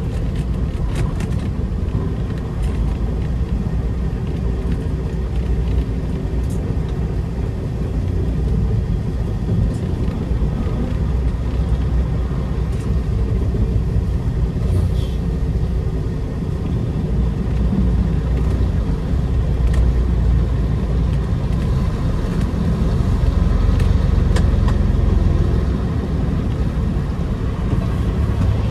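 Peterbilt 389 semi truck's diesel engine running, a steady low rumble throughout with a few faint clicks.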